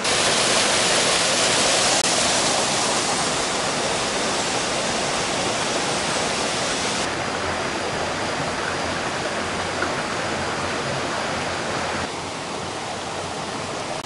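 Steady rushing of flowing water from a stream or waterfall. The hiss changes abruptly, growing duller about halfway through and again near the end.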